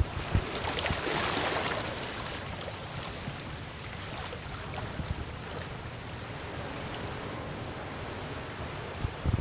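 Seawater washing over and draining between rocks at the shoreline, a steady wash that swells briefly about a second in.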